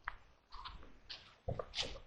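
Footsteps crunching and rustling through leaf litter in the woods, a few uneven steps.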